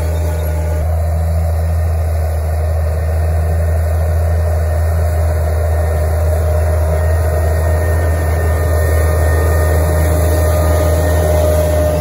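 Tractor diesel engine running steadily under load, a continuous low drone, with a faint whine that grows stronger in the second half.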